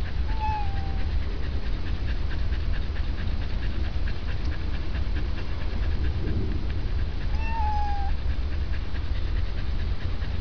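Cat meowing twice, short slightly falling calls about a second in and again about seven seconds in, over a steady low rumble.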